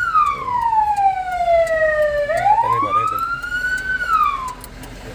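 Fire engine siren wailing, heard from inside the cab: the pitch falls slowly, rises again, then falls away and stops near the end.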